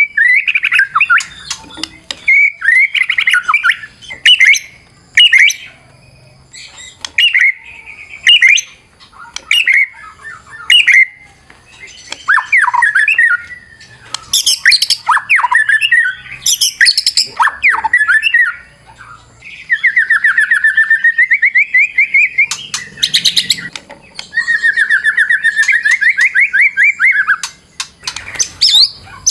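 White-rumped shama (murai batu) singing a loud, varied 'fighter' song: quick-changing whistled phrases broken by sharp, harsh notes, then two long, rapid trills in the last third.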